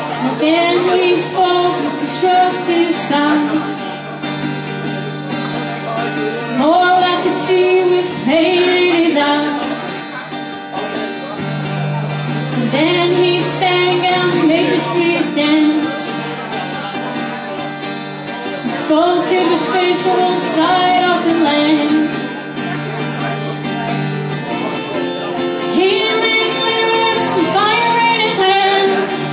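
A woman singing a slow song to her own strummed acoustic guitar, in phrases a few seconds long over a steady low note.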